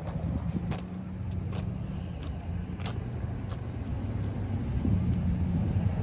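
A car driving at highway speed, heard from inside the cabin: a steady engine and tyre hum, with a few faint, unevenly spaced clicks.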